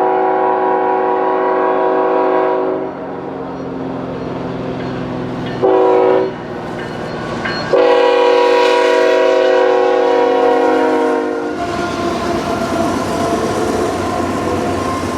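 Diesel locomotive air horn sounding a chord in three blasts: a long one ending about three seconds in, a short one near six seconds, and another long one to about eleven and a half seconds. After the horn, the rumble of the passing train with locomotive engine sound.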